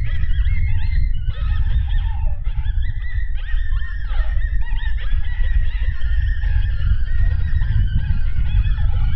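Strong wind buffeting the microphone, a constant low rumble, under a chorus of many overlapping short animal calls that bend up and down in pitch.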